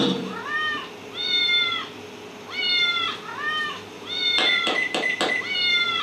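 Sound-effect mix of a cat meowing over and over, about six rising-and-falling mews, over a steady low hum from a running microwave oven. A few sharp knocks come about four to five seconds in.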